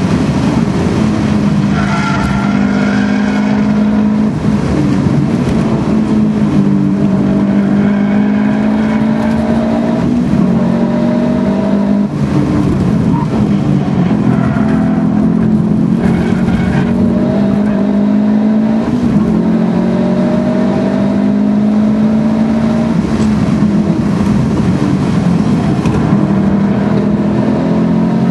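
Subaru Impreza STI's 2.5-litre turbocharged flat-four, fitted with a Milltek exhaust, heard from inside the cabin under hard acceleration. Its pitch repeatedly climbs through the revs and drops back at each gear change or lift.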